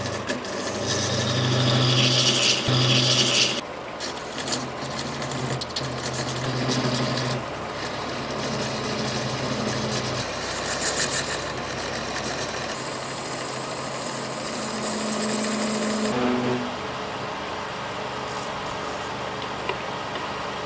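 Wood lathe running with a steady motor hum while a turning tool cuts a spinning boxwood blank, a hissing scrape that is loudest in the first few seconds and comes and goes after.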